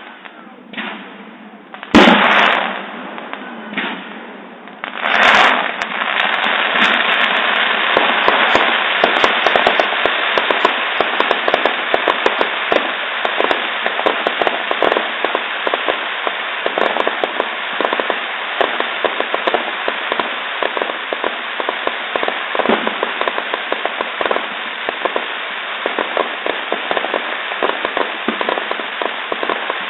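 Fireworks: a sharp bang about two seconds in and a few more bursts, then from about six seconds on a dense, continuous crackling of many small pops.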